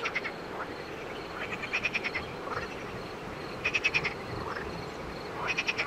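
A chorus of frogs croaking, with a loud rattling call about every two seconds and fainter calls between.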